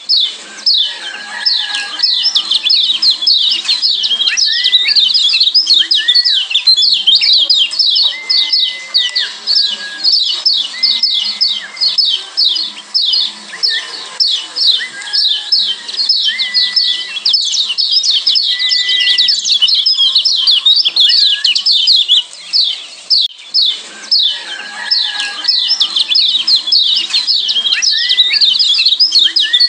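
Lombok yellow white-eyes (kecial kuning, a Zosterops white-eye) calling in a fast, unbroken stream of high chirps, the 'ciak joss' calls that keepers play as a master track, with a few short lower whistled notes mixed in. The chirping thins briefly about two-thirds of the way through.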